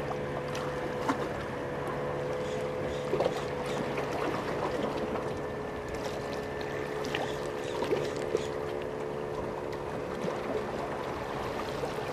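Ryobi Micro Power 500 spinning reel being cranked while a metal jig is worked, over a steady, even hum, with a few light clicks.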